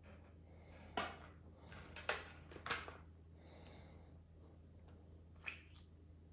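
Small parts being handled on a table: a few sharp clicks and light knocks over the first three seconds, with soft rustling between, then one more click near the end.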